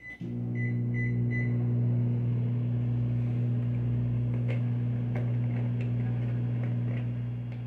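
Microwave oven keypad beeping four times in the first second and a half, with the oven starting up after the first beep and then running with a steady, loud electrical hum as it heats.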